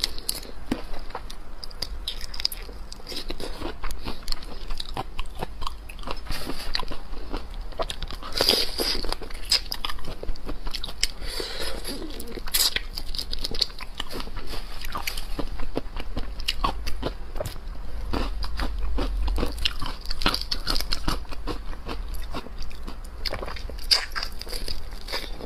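Eating sounds: biting and chewing raw marinated prawns, with many short wet clicks and crunches.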